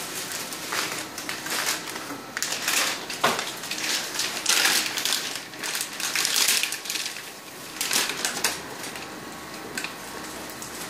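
Clear plastic packaging of an IV fluid bag crinkling and rustling by hand in irregular bursts, with sharp crackles, dying down near the end.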